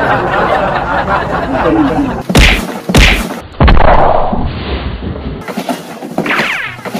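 Loud thumps over a noisy background: two sharp ones about two and a half and three seconds in, then a third heavier one just after, fading into quieter knocking.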